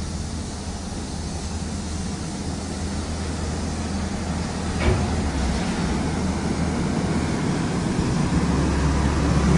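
Large diesel engine of a heavy vehicle running steadily, gradually getting louder, with a single sharp knock about five seconds in.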